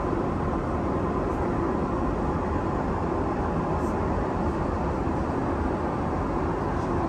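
Steady cabin drone of a Boeing 777-300ER in flight: even engine and airflow noise with no change in level.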